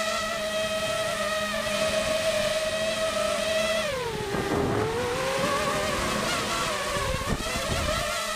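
Multirotor drone's electric motors and propellers whining steadily, heard from the camera on the drone. About four seconds in the pitch drops sharply, then climbs back unevenly as the throttle changes, with a low rumble underneath until near the end.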